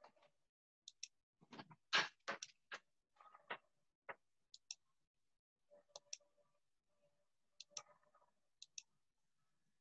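Computer mouse buttons clicking, mostly in quick press-and-release pairs, as wire segments are placed. A cluster of louder clicks and knocks comes about two to four seconds in.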